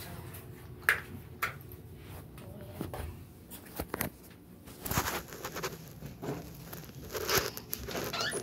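Handling noise close to a phone's microphone: rustling and scattered knocks and taps as toiletry items and the phone itself are picked up and moved, with a sharp knock just under a second in and louder rustling bursts about five and seven and a half seconds in.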